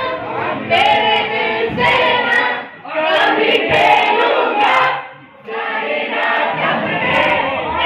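A woman singing into a microphone, the song broken by two brief pauses for breath.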